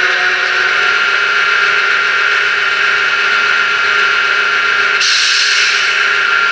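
H0 model diesel locomotive's digital sound decoder playing a steady diesel engine idle through its small loudspeaker. About five seconds in a hiss of air starts and runs for about two seconds.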